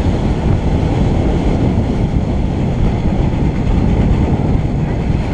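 Steady low rumble of wind and road noise on the microphone of a camera travelling down a street, with no distinct engine note.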